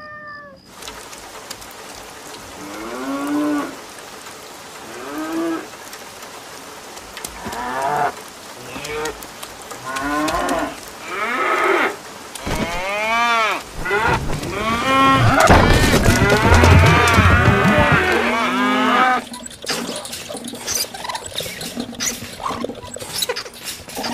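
Cattle mooing: a series of drawn-out calls that each rise and fall in pitch, coming closer together and overlapping into a loud chorus about two-thirds of the way in. The chorus is followed by a run of short clicks near the end.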